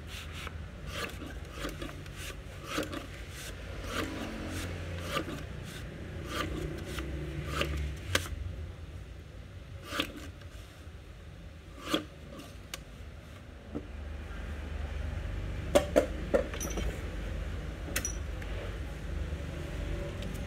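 Lever paper cutter blade chopping through sheets of green insulation paper, a run of sharp cuts and scrapes that come close together at first and then further apart.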